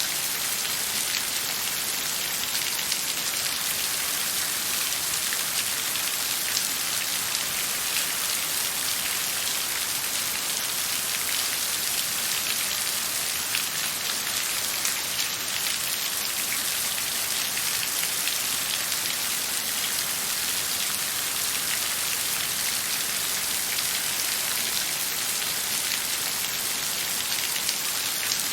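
Steady rain falling on a surface, a dense hiss of fine drop patter with no let-up.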